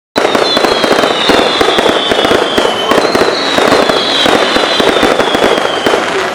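Fireworks going off in a dense, loud barrage of pops and crackles, starting abruptly, with a high whistle sliding slowly down in pitch twice over it.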